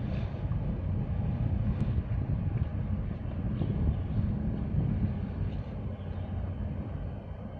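Low, unsteady rumble of wind buffeting the microphone at the harbourside, with no distinct events.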